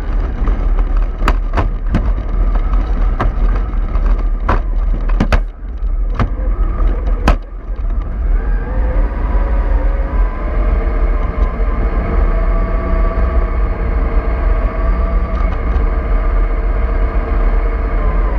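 MAN bus running under way, a heavy low engine rumble with a few sharp knocks or rattles in the first seven seconds or so. From about eight seconds in, a steady whine from the drivetrain joins the rumble.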